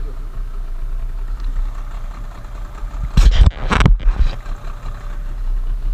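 Small boat's outboard motor running steadily at low speed. Two loud bursts of noise come about three and four seconds in.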